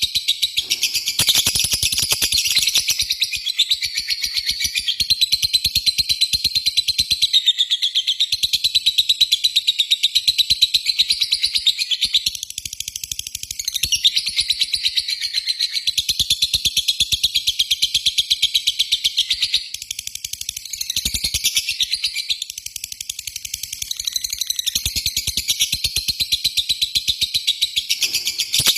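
Lovebird chattering ('ngekek'): a long, fast, high-pitched stream of notes with a couple of brief lulls, the kind of call played to lure other lovebirds into singing.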